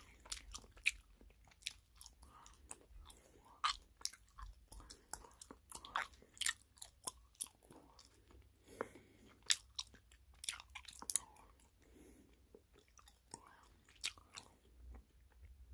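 A person chewing Dubble Bubble bubble gum with the mouth open, making a string of short clicks and smacks at an irregular pace, several a second.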